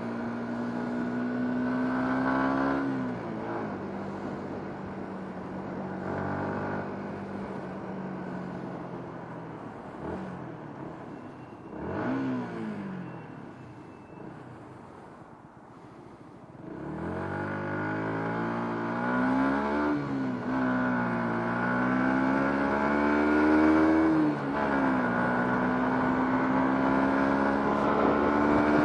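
Motorcycle engine pulling and shifting up through the gears, its note climbing and then dropping at each shift. It eases off to a quiet spell about halfway through, then picks up again with two or three more upshifts, under steady wind noise.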